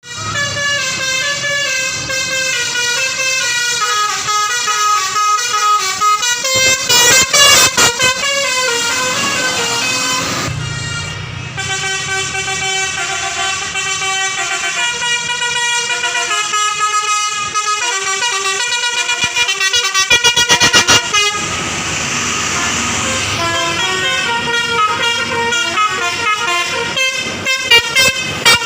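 Indonesian telolet bus horn, a Basuri V3 multi-tone musical air horn, playing quick stepping tunes note after note, with short gaps between runs and the loudest blasts about a quarter of the way in and again about two-thirds through.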